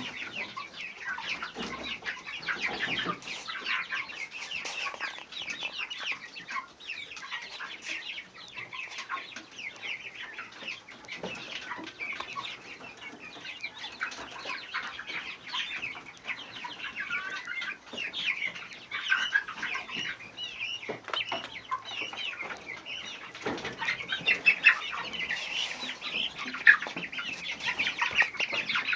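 Chickens and chicks clucking and peeping continually, with scattered wing flapping.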